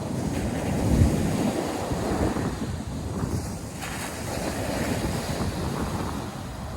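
Ocean surf breaking and washing on a beach, with wind buffeting the microphone in low rumbling gusts, strongest about a second in.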